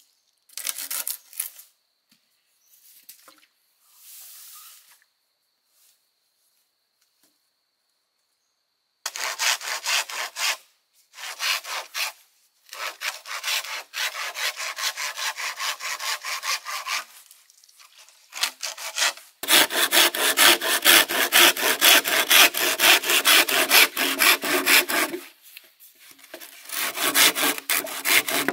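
Bamboo being sawn by hand in long runs of rapid back-and-forth strokes. It starts about a third of the way in, pauses briefly a few times, and is loudest in a steady run in the second half.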